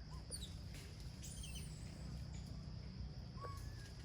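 Steady high-pitched insect drone, with a few short bird chirps and whistles scattered through, over a constant low rumble.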